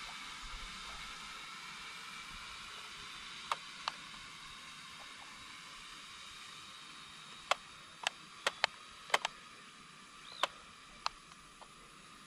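Faint, steady high whine of a toy drone's propellers, slowly fading as the drone drifts away out of reach of its remote. A string of sharp clicks, mostly in the second half, is louder than the whine.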